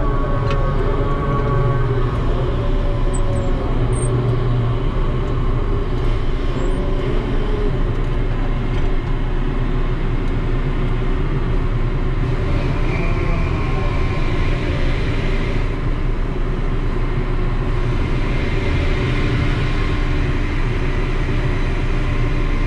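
Ship's deck crane machinery running steadily, heard from its operating cab, with a whine that rises and falls several times as the crane is worked on its levers.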